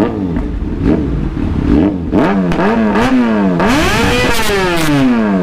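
Yamaha MT-09's inline-three engine revved through a small, loud aftermarket muffler: a string of quick throttle blips, then one longer rev that climbs and falls back over about two seconds.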